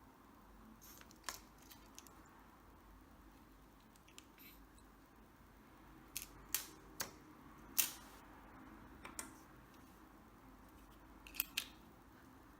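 Faint, irregular plastic clicks of car remote key fobs being handled and their buttons pressed: a single click about a second in, a cluster of five or so midway, and a pair near the end.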